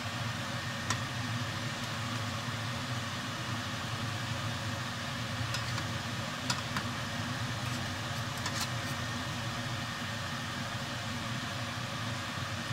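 Stuffed eggplants frying in a pan of oil, a steady sizzle over a low hum, with a few light metal clinks of a fork and slotted spoon as the fried eggplants are lifted out.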